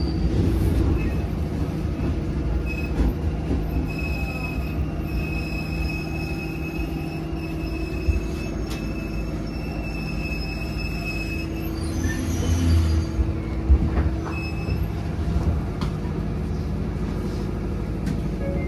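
Interior running noise of a JR 205 series 3100 electric commuter train: a steady rumble of wheels on rail with a low motor hum. A thin high squeal from the running gear carries on for several seconds in the middle, followed by a few heavier low thuds, as the train slows toward a station.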